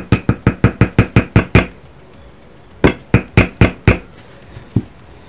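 Glass mason jar knocked repeatedly against the table, about six knocks a second, to work loose glitter inside down into place. After a short pause comes a second run of five knocks about three seconds in, and one last knock near the end.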